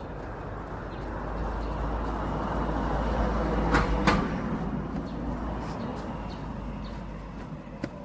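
A vehicle passing by: a rumbling noise that builds, peaks about four seconds in with two sharp clicks, and fades away.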